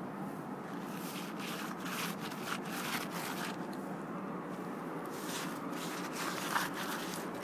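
Irregular crunching footsteps on gravel and patchy snow, over a steady background rush.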